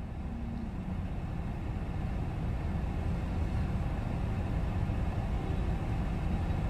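Steady low rumble of outdoor street noise, with traffic running in the background, fading in over the first second.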